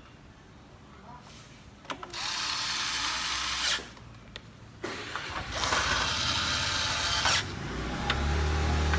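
Electric screwdriver driving screws: two runs of its motor whirring, the first about a second and a half long, the second about two and a half seconds. A low steady hum starts near the end.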